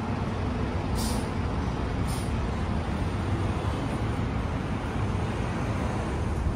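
Downtown street traffic with a city bus running at the kerb, a steady low rumble, broken by two short hisses about one and two seconds in.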